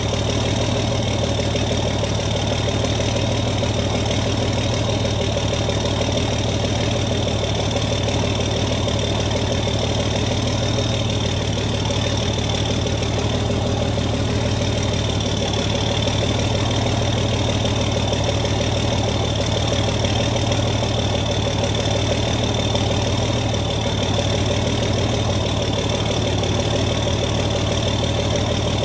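John Deere tractor engine idling steadily, with a steady high whine over the low engine hum.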